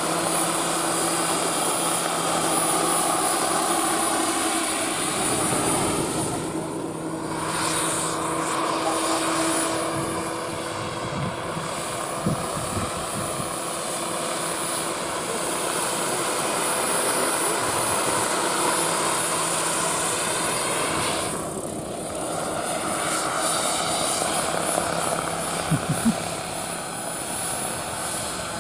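Radio-controlled scale model helicopter flying, its engine and rotors making a steady high whine that shifts in tone as the model moves about, changing sharply twice as it passes.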